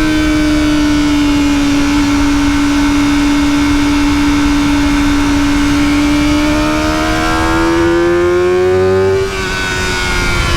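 Kawasaki ZX-4RR's 399 cc inline-four on its stock exhaust, running high in the revs at a steady pace. About seven seconds in the pitch climbs for two seconds, then drops abruptly near the end in a quick upshift. Wind rush runs underneath.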